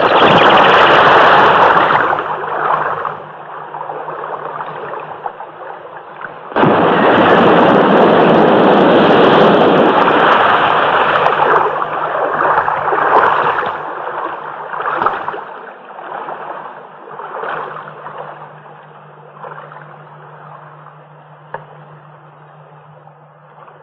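Explosion sound effects from the mobile units' weapons firing: a loud blast right at the start that dies away over a few seconds, then a second, longer blast about six and a half seconds in that fades out slowly. A low steady hum runs underneath.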